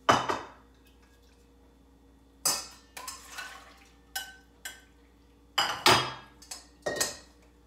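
Cookware clattering as a small pan is handled and set down: a string of sharp clanks and knocks, some ringing briefly. The loudest comes at the start and another about six seconds in.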